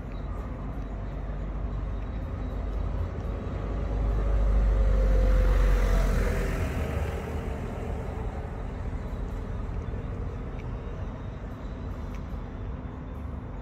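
Street traffic: a steady low rumble, with a vehicle passing by that swells to its loudest about four to six seconds in, its faint whine falling slightly as it goes.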